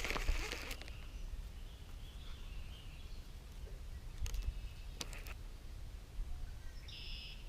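Quiet outdoor ambience with a low wind rumble on the microphone, a few faint clicks in the middle, and a short bird chirp near the end.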